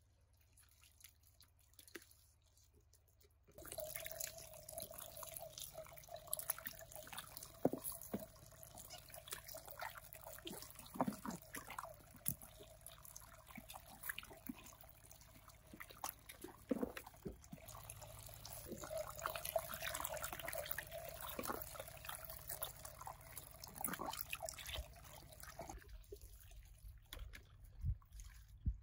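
Water running and splashing, with scattered knocks and clinks of things being handled in it. It starts a few seconds in and stops a few seconds before the end.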